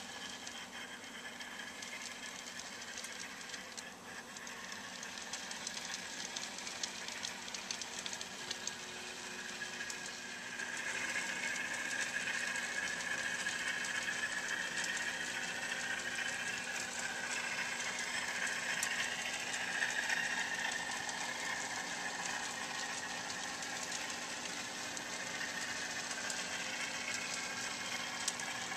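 Model trains running on a layout: a steady electric-motor whine with fine clicking of wheels over the rail joints, louder about eleven seconds in.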